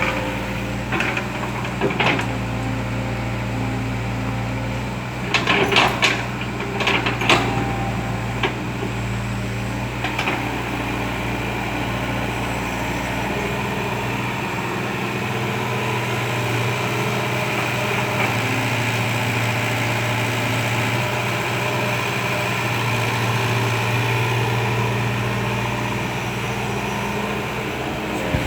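Kobelco Yutani hydraulic excavator's diesel engine running steadily, with a few sharp clanks and knocks, most of them in a cluster about five to seven seconds in.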